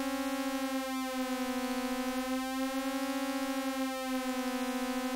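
Two sawtooth oscillators synthesized in SuperCollider, both holding middle C while one is swept a whole step up and down by a slow sine LFO, about once every three seconds. The result is a steady buzzy tone with a slow vibrato-like wavering, wider than the tight phasey detune being aimed for.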